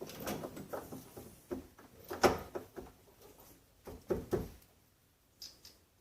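Short metal knocks and clicks as a new ATV front axle is handled and fitted into place, the loudest knock about two seconds in and two more just after four seconds.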